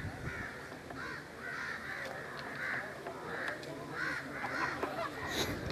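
Many birds calling over one another, short calls repeating about twice a second, with a sharp click near the end.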